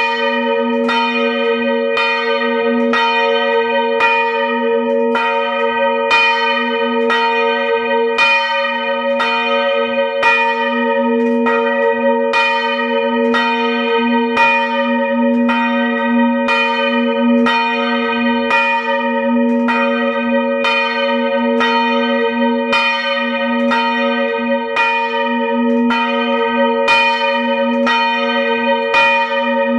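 Two large swinging church bronze bells, of about 450 kg and 380 kg, ring together close up in the belfry. Their clapper strokes fall at about one a second, and each stroke rings on under the next in a continuous clang.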